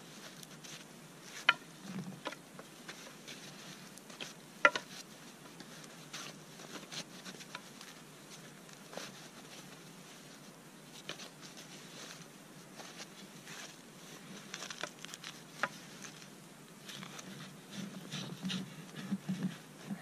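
Hands in gloves working a binding around two crossed wooden poles: faint rustling and small clicks, with two sharp knocks of wood in the first five seconds. Soft crunches of snow underfoot come near the end.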